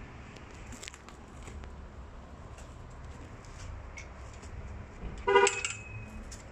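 A single short car horn toot, lasting about a third of a second, about five seconds in, over steady low background noise.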